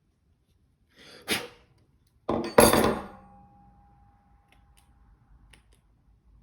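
Metal spray gun parts being handled during reassembly: a light clack about a second in, then a louder metallic clank at about two and a half seconds that rings briefly and fades, followed by a few faint ticks.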